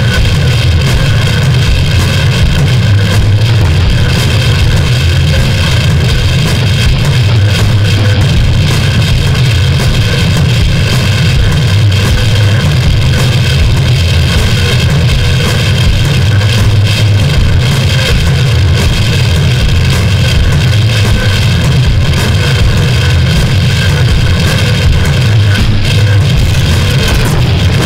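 Harsh noise music: a loud, dense wall of distorted noise with a heavy low rumble and steady bands of higher tones, without a break.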